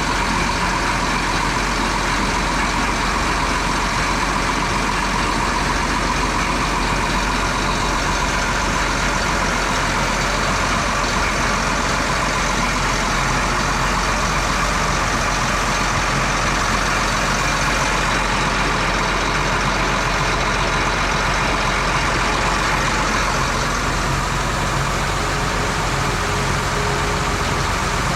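Grain truck engine running steadily, an even noise with no change in level or pitch.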